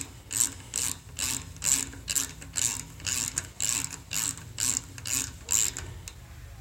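Snap-on 3/8-inch flex-head ratchet clicking in short, evenly repeated strokes, about two a second, as it turns a tap through a drilled hole to cut threads.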